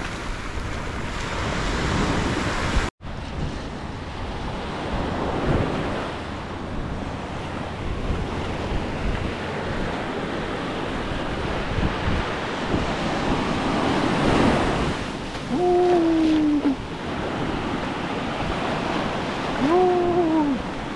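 Ocean surf breaking and washing up the beach, with wind buffeting an unshielded microphone. The sound drops out for an instant about three seconds in, and two short pitched calls, about a second each, rise above the surf near the end.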